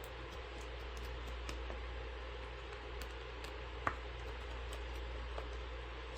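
Faint scattered ticks and clicks of a small screwdriver backing out tiny battery screws inside a tablet, with one sharper click about four seconds in, over a steady low hum.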